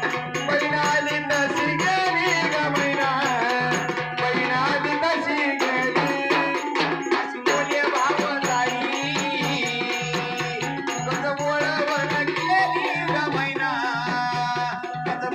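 Live Marathi devotional folk song: a singer's voice carried over a keyboard and tabla-style hand drums, with rattling percussion throughout.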